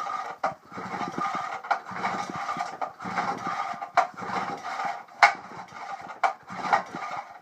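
Recoil starter rope of a 5.5 hp Johnson Sea Horse two-stroke outboard pulled over and over, about once a second, cranking the engine against compression for a compression test, with sharp knocks on some pulls.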